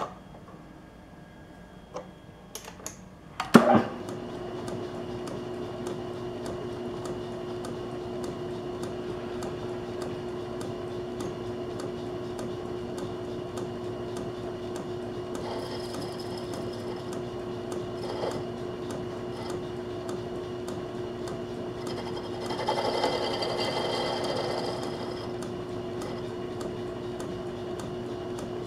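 Small metal lathe started with a loud click about three and a half seconds in, then running with a steady hum. From about 22 to 25 seconds a louder hiss rises over the hum as the tool bit cuts into the small spinning workpiece.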